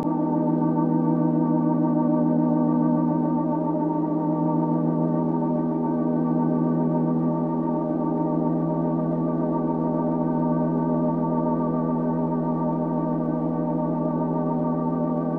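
Background music: one organ-like chord held steadily, with a slight wavering.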